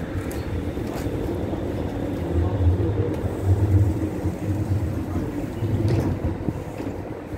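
Stadtbahn light-rail car standing at a platform, its running equipment giving a steady noise with low rumbling swells. A short knock near the end comes as the passenger doors slide shut.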